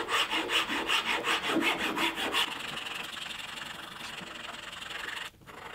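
A hand file rasping back and forth across the edge of a beech block, taking off material to fair a sharp edge into a smooth curve. The strokes come quick and even, about five a second, then turn into a steadier, lighter rubbing that cuts off shortly before the end.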